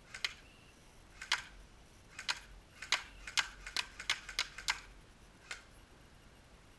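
Airsoft gun shooting: about fifteen sharp, light ticks at uneven intervals, some in quick pairs, bunched most densely between about 3 and 5 seconds in.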